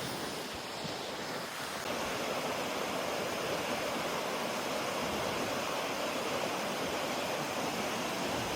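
Waterfall rushing in a steady, even roar, growing a little louder about two seconds in.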